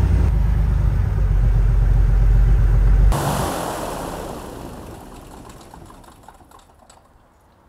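Piper Saratoga's piston engine idling smoothly at about 1,160 RPM on its first run after a prop-strike repair. About three seconds in, the low engine sound stops abruptly, and what is left fades away over the next few seconds.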